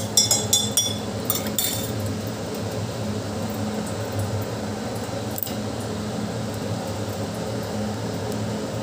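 A metal spoon clinking several times against a drinking glass while stirring sugar into water, the clinks stopping about two seconds in. After that, a steady low hum.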